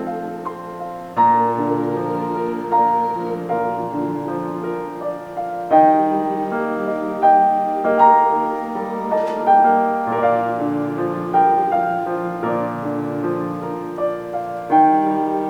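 A piano playing a slow passage of chords, a new chord struck every second or two and left to ring.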